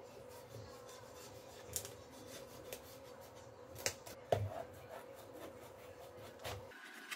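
Long kitchen knife cutting through a large winter melon on a wooden cutting board: faint scraping of the blade through the hard rind and flesh, with a few sharp clicks and a soft knock a little past four seconds in, as the melon falls apart into halves.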